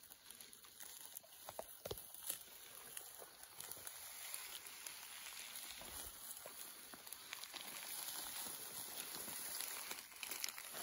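Footsteps brushing through tall dry grass: steady rustling and crackling of stalks, with scattered light clicks and snaps.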